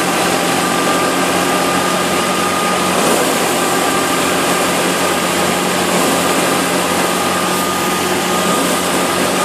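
Wheat thresher running steadily while sheaves of wheat are fed into it: a constant dense whirring from the spinning drum and its drive, with a steady whine held throughout.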